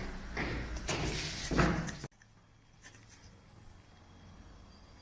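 Footsteps and scuffing of people walking down a stairway, in an uneven run of knocks. About two seconds in they cut off abruptly to quiet room tone with a few faint ticks.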